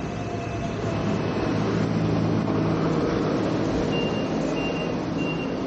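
Hong Kong double-decker tram running along the street: a steady low rumble with traffic around it. About four seconds in, short high beeps start, repeating about every half second.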